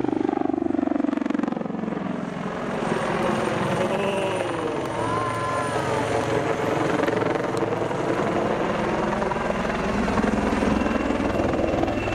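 AgustaWestland AW159 Wildcat helicopter flying a display pass, its rotors and twin turboshaft engines giving a steady, loud sound. The pitch bends slowly as it moves past.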